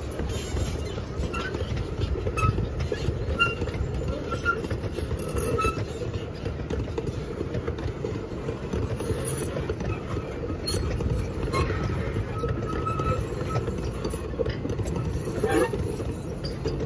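Loaded sugarcane bins of a narrow-gauge cane train rolling past, a steady low rumble of wheels on rail.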